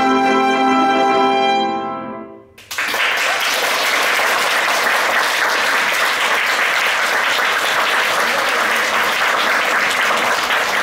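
Saxophone and piano hold a final chord that dies away about two and a half seconds in. Then the audience applauds steadily.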